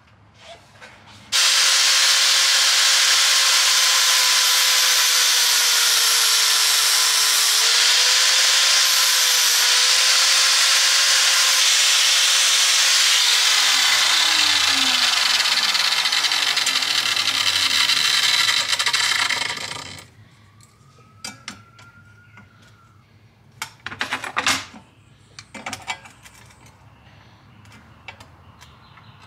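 Angle grinder notching a steel rod: the motor whines steadily under a loud grinding hiss for about twelve seconds, then is switched off and winds down, its pitch falling over several seconds. A few light clicks and taps follow near the end.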